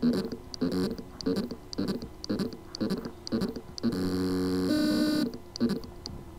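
HGST 2.5-inch laptop hard drive whose spindle motor has loose contacts on the circuit board: the motor gives short buzzing pulses about twice a second, broken about four seconds in by a buzzing tone held for over a second. The motor can spin but cannot reach its full speed.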